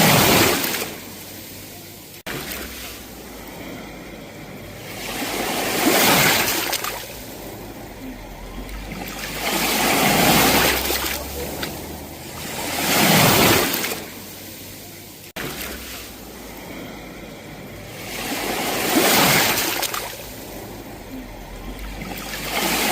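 Sea waves breaking on a shore, the surf swelling and falling away with a new wave every few seconds. There is a brief abrupt dropout twice, about two seconds in and about fifteen seconds in.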